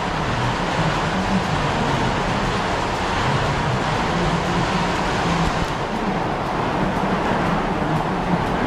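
Milking machine running in a parlour with the clusters on the cows: a constant mechanical noise from the vacuum system, with a faint steady whine over it.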